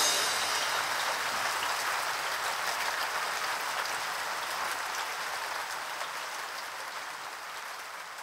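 Recorded rain, an even patter with faint ticks, fading slowly out.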